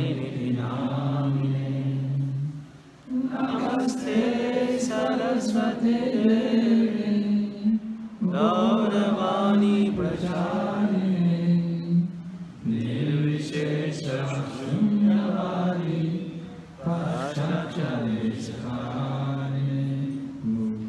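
A man chanting a devotional mantra into a microphone, one voice holding long, slow notes in phrases of about four seconds with short breaks between them.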